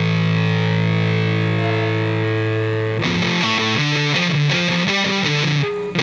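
Background rock music led by a distorted electric guitar: a held chord, then about three seconds in a fast riff of changing notes starts.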